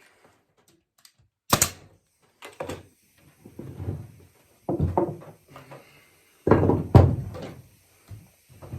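A series of wooden knocks and thunks as sourwood chair parts are handled and fitted together, the loudest about seven seconds in.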